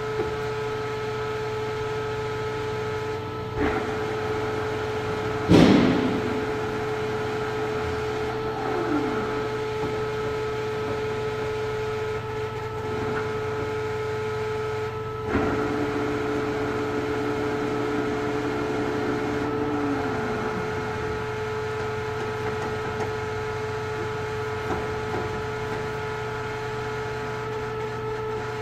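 Vanguard CW61 40" x 80" engine lathe running on low speed: a steady motor and gearbox whine over a hum. Clunks come as the headstock controls are worked, the loudest about five and a half seconds in. After a clunk near fifteen seconds a lower whine holds for a few seconds, then slides down in pitch near twenty seconds.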